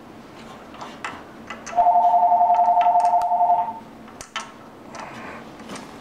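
An electronic telephone ringer trilling once for about two seconds, two tones warbling rapidly. Around it, light clicks and knocks of hands handling the engine's rubber breather hose and fittings.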